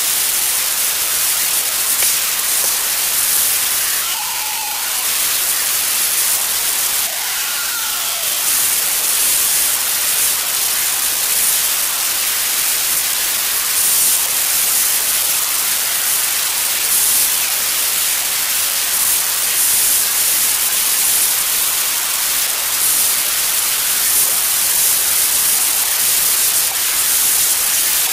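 Steady static hiss on the recording, a bright, even noise weighted toward the high end that masks everything else.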